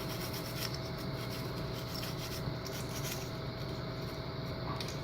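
An old toothbrush with soap scrubbing a plastic model-kit runner, a steady run of faint bristle strokes, washing off the mould-release residue.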